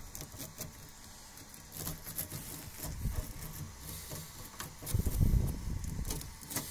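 Scratchy clicks of a brass wire brush scrubbing the brass nozzle of a 3D printer's print head, mixed with handling noise. A louder low rumble comes about five seconds in.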